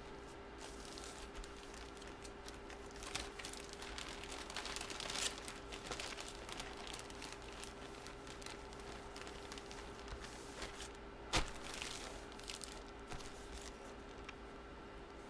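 Packaging crinkling and rustling in irregular bursts as it is handled and torn open, with one sharp click about eleven seconds in, over a faint steady hum.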